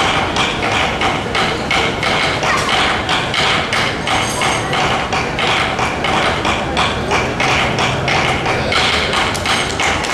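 Drums beating a quick, steady rhythm for a prehispanic dance.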